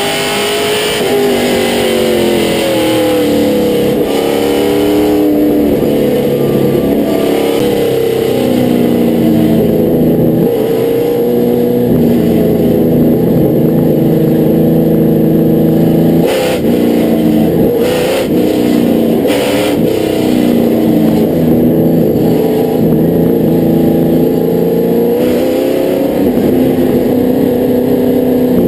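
Late model race car's V8 engine heard from inside the cockpit, its pitch dropping and climbing as the driver lifts and gets back on the throttle, then holding steady for long stretches. Three sharp knocks come about two-thirds of the way through.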